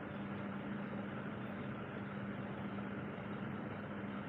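Steady machine hum with hiss and a constant low tone, unchanging throughout.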